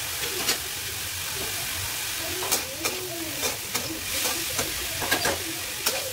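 Food frying with a steady sizzle in a large aluminium kadai, stirred with a metal spatula that scrapes and clinks against the pan. The clinks come several times, mostly in the second half, each ringing briefly.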